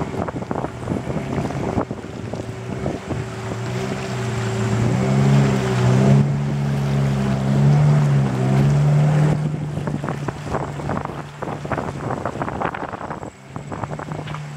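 A river boat's motor running under way, its pitch rising and wavering about five seconds in, then holding. Water rushes and splashes against the hull, and wind buffets the microphone throughout.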